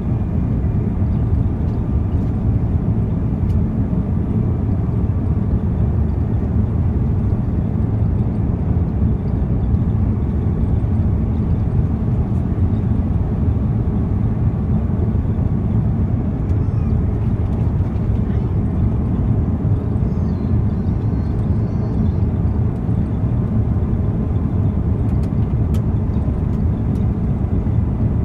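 Steady low rumble of an airliner's engines and rushing air, heard from inside the passenger cabin during the descent to land.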